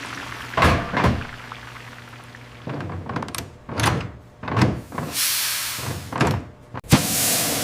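A series of dull thuds and knocks, about five over several seconds. Two loud bursts of hiss come about five seconds in and again near the end.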